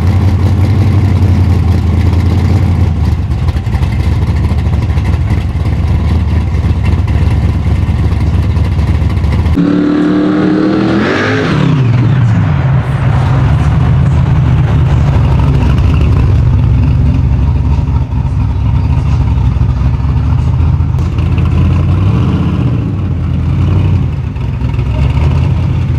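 Supercharged 1957 Chevrolet's engine running. About ten seconds in, a rev falls away in pitch, and then the engine runs steadily again as the car drives.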